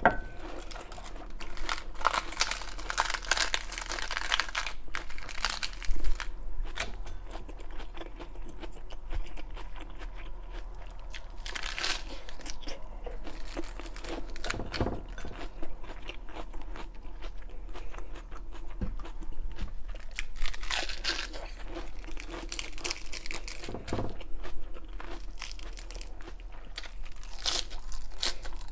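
Crisp raw iceberg lettuce being chewed and crunched continuously, close to a clip-on microphone, with leaves torn and peeled off the head now and then. The crunching swells in several louder spells, with one sharp crack about six seconds in.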